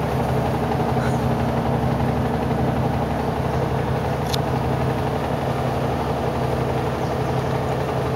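A steady low mechanical hum with a faint click about four seconds in.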